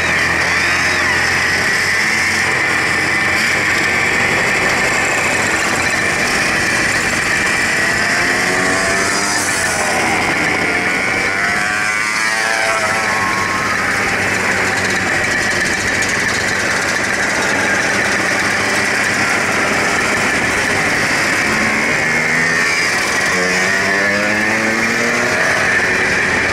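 A group of classic mopeds riding together, their small two-stroke engines running steadily. Engine notes rise and fall in pitch as riders pass close, around the middle and again near the end.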